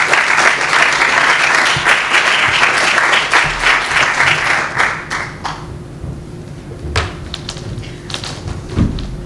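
Audience applauding, the clapping dying away about five and a half seconds in; a few scattered knocks and taps follow.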